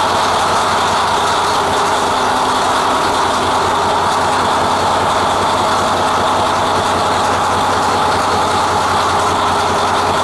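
Large Caterpillar marine diesel engine running steadily, heard from inside the engine compartment: a loud, even drone that does not change.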